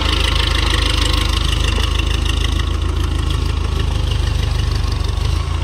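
Diesel tractor engine running steadily close by while its front-end loader lifts a full bucket of soil and the tractor moves off with it.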